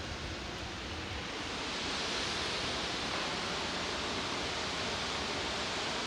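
Waterfall's falling water giving a steady rushing hiss, growing slightly louder about two seconds in.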